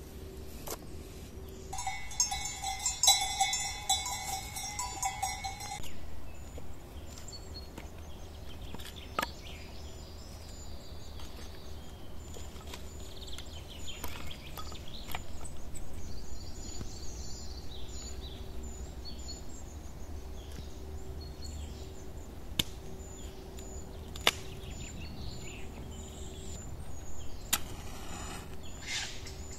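A livestock bell rings steadily for a few seconds, then open-air background with faint bird chirps and a few sharp clicks as dry wood is stacked. Near the end a match strikes and flares.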